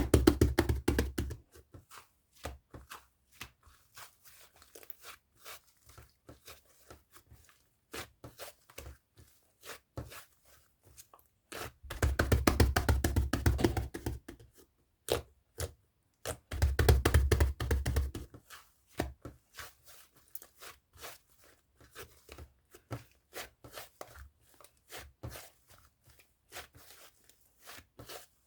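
Irregular clicks and taps, with three louder stretches of crackling, crunching noise over a low rumble: at the start, about twelve seconds in, and about seventeen seconds in.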